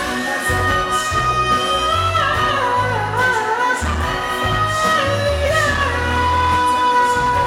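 Live pop band music: long held, wavering melody notes over a pulsing bass line, with singing.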